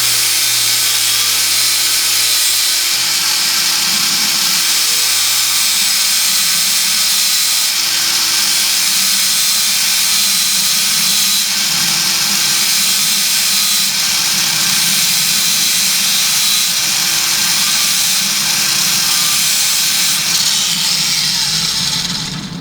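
Cordless angle grinder with a flat grinding wheel grinding steel, grinding off a pin of a baler's roller chain: a loud, steady grind with the motor's whine through it, stopping suddenly at the end.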